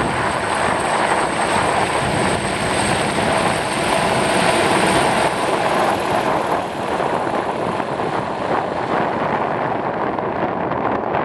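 Helicopter rotor and engine running with a steady, heavy noise. A thin high whine on top fades out about halfway through.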